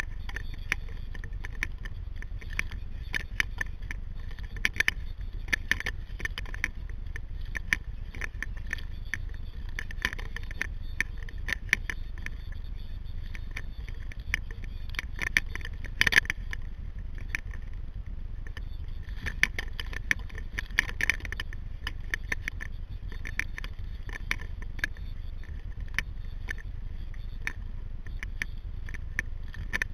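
Paddling a sea kayak: water splashing and dripping around the paddle and hull in clusters of small clicks and ticks, over a steady low rumble.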